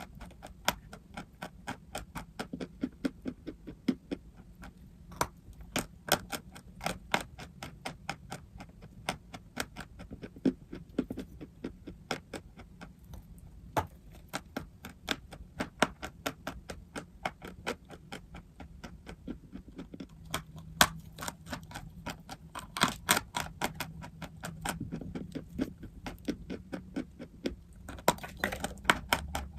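Dry crunchy chalk and clay crunching close up: a quick, uneven run of sharp crisp cracks, about two or three a second, with a denser, louder cluster near the end.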